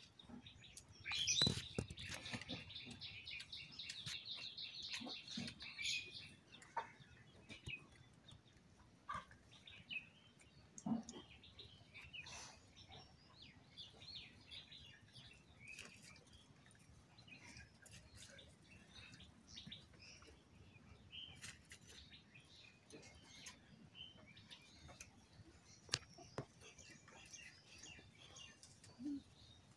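Birds chirping in a quick run of high calls for about five seconds near the start, then occasional short calls. Faint scattered clicks and taps of people eating by hand from plates.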